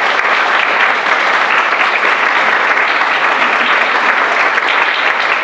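Audience applauding, a steady, sustained round of clapping from a room full of people.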